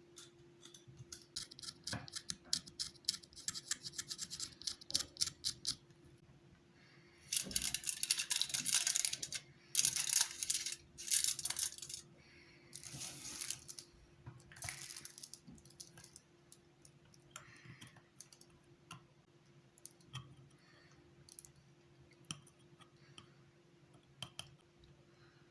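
Fast scratching strokes over the first few seconds, then several bursts of hard scraping a second or two long, then scattered light clicks and scratches: hand work with a knife and pencil graphite.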